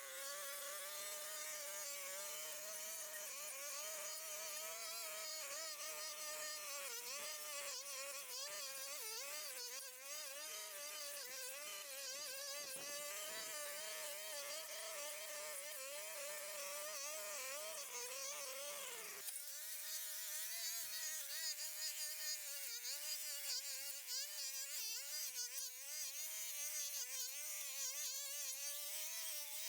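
Small petrol engine of a garden power tool running at high revs, a steady buzz whose pitch wavers up and down as the load changes. About two-thirds of the way through the sound changes abruptly and thins out, then carries on in the same way.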